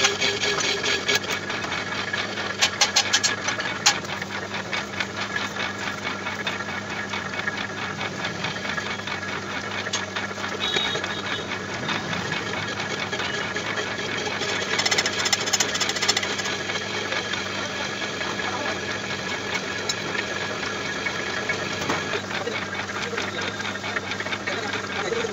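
Metal lathe running with a boring bar cutting the inside of a rotavator hub turning in the chuck. A steady hum is overlaid by dense rapid clicking and rattling, with brief louder bursts of clicking about three seconds in and again around fifteen seconds.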